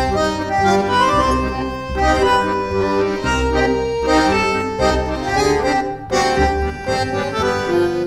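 Background instrumental music: a held-note melody over a repeating bass line.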